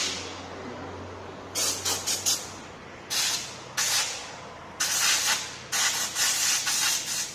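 Short hissing blasts of spray aimed at a rear drum brake assembly during cleaning, about six in a row, each lasting under a second, with brief pauses between them.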